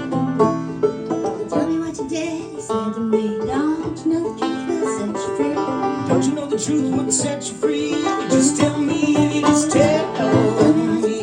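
Live acoustic banjo music: a banjo picking a steady run of plucked notes in an instrumental introduction, with no singing yet.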